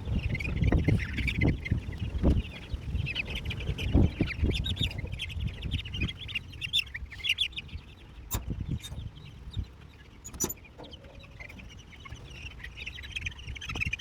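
A flock of young chicks peeping together in quick, overlapping high calls, with low thumps and rustling over the first half and a couple of sharp clicks later on.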